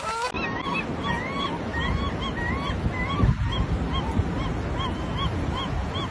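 Gulls calling over and over, short arched squawks about two a second, over a steady low rushing background.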